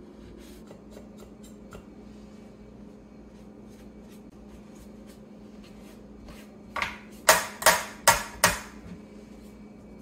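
Faint rustling and small clicks of wiping and brushing a coffee grinder, then, about seven seconds in, five sharp knocks roughly half a second apart as the grinder is tapped by hand to knock loose leftover coffee grounds.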